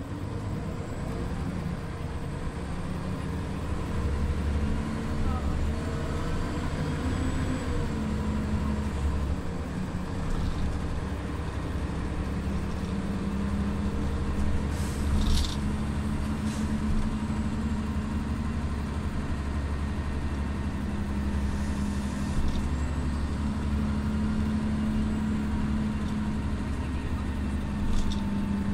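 Scania OmniLink city bus under way, heard from inside: the diesel engine's steady drone rises in pitch about four to eight seconds in, then drops, and settles into a steady run. A few short sharp rattles or clicks come near the middle and again near the end.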